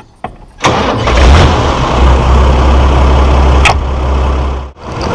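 Fendt Farmer 311 LSA Turbomatik tractor's diesel engine starting: a click, then the engine catches about two-thirds of a second in and runs on steadily with a deep hum and a couple of sharp clanks. The sound drops out abruptly near the end.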